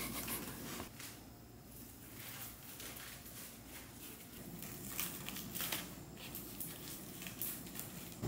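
Faint rustling and scraping of a sisal scratching pad being wrapped around a table leg and strapped on with hook-and-loop straps, with a few sharper crackles in the second half.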